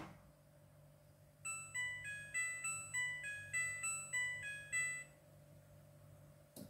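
Midea front-loading washing machine's electronic signal melody: about a dozen short chime-like notes stepping up and down in pitch, each fading quickly, over three to four seconds. A faint steady hum runs underneath, and there is a small click near the end.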